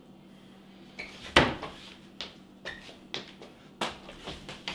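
Kitchen cabinet being rummaged through: about half a dozen separate knocks and clatters of doors and kitchenware, the loudest about a second and a half in.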